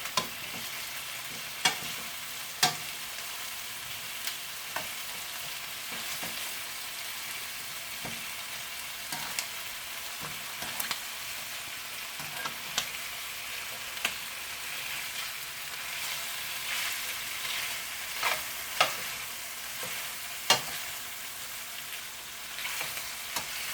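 Chicken wings sizzling as they fry in a pan, a steady hiss broken by a few sharp clicks of a utensil knocking against the pan.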